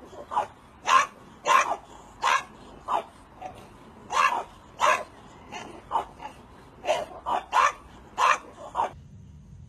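French bulldogs barking at one another in play: a string of about sixteen short barks, roughly one every half second, that stops abruptly about nine seconds in.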